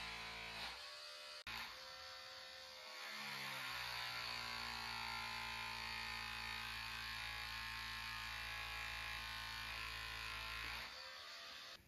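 Background music of sustained, buzzing drone-like tones, with a downward pitch slide about two to three seconds in, cutting off near the end.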